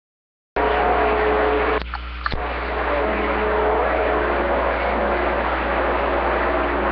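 CB radio receiver static and hiss on an open channel, switching on suddenly about half a second in, with faint steady tones from distant skip signals and a low hum underneath. A brief drop in the noise around two seconds in ends with a click.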